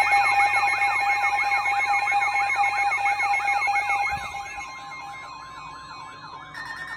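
Electronic yelp siren, its pitch sweeping rapidly up and down several times a second over steady alert tones. It drops sharply in level about four seconds in, and a fainter yelp with a steady tone carries on.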